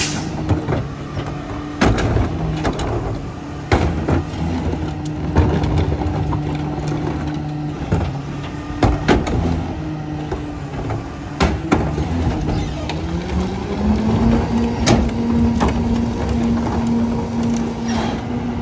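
Pac-Tech rear-loader garbage truck at work: the diesel engine runs steadily while the hydraulic cart tipper lifts and dumps wheeled carts with repeated bangs and knocks. About thirteen seconds in, the engine speeds up to a higher steady pitch to drive the hydraulic packer, then drops back at the end.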